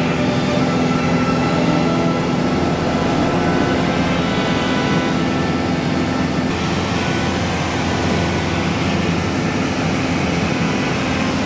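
Light single-engine propeller aircraft's engine and propeller droning steadily in cruise, heard from inside the cabin.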